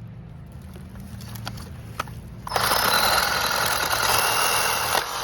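RYOBI ONE+ 18V cordless reciprocating saw running hard in one loud burst of nearly three seconds. It starts suddenly about halfway through and stops abruptly near the end, over a low steady hum with a few faint clicks.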